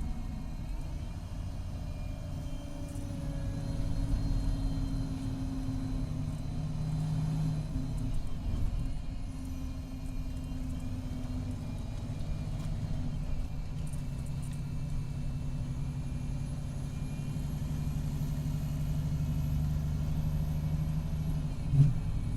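Cummins ISX12 diesel engine and Allison B500R automatic transmission of an MCI D4500CT coach running, a steady low drone with whines that rise and fall in pitch. The uploader says the transmission is in its last stages. A short sharp knock comes about half a second before the end.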